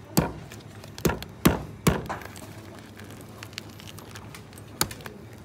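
Cleaver knocking into the spiky husk of a Musang King durian to split it open: four sharp knocks in the first two seconds, then one more near the end.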